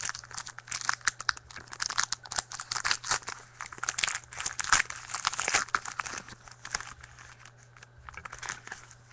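Trading-card pack wrapper crinkling and tearing as it is handled and opened: a dense run of crackles that thins out over the last couple of seconds.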